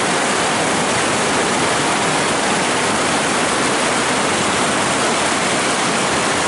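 River rapids rushing: a steady, loud wash of white water tumbling over rocks.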